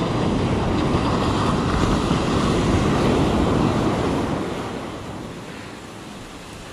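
Ocean surf breaking and washing up the beach, with wind on the microphone. The wash is loud for the first few seconds, then fades away a little past the middle.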